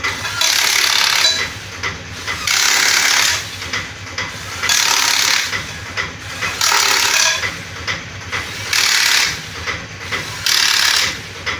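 A hand tool scraping metal in slow, even strokes: six rasping strokes, each about a second long, roughly every two seconds.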